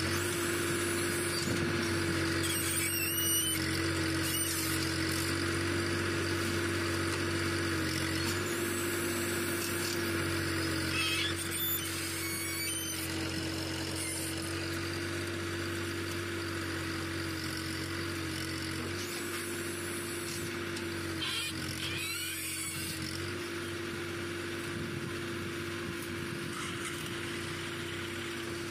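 Tractor diesel engine running steadily to power a tractor-mounted backhoe, its pitch dipping slightly a few times. A few brief high squeals are heard over it.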